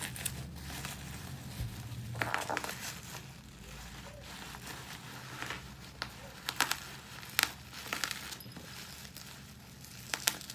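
Plastic parcel packaging crinkling and rustling as it is handled and pulled open, with a few sharp crackles about seven seconds in.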